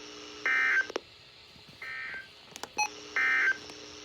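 Three short touch-tone (DTMF) signalling beeps, about a second and a half apart, over a faint steady hum on a weather radio broadcast, with a few small clicks between the second and third beep.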